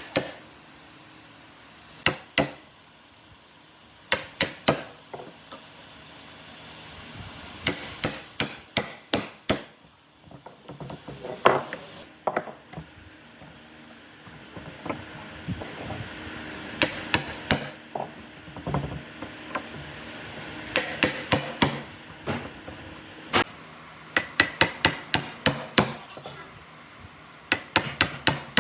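Hammer strikes on wood, coming in quick runs of several sharp taps with short pauses between the runs.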